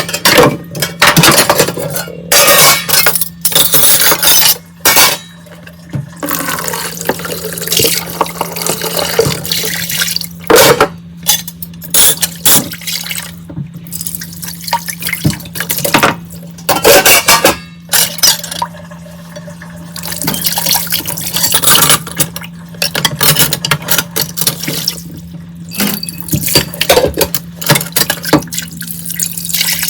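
Dishes being washed by hand under a running tap: water running and splashing in bursts that start and stop, with frequent clinks and knocks of plates and glassware. A steady low hum runs underneath.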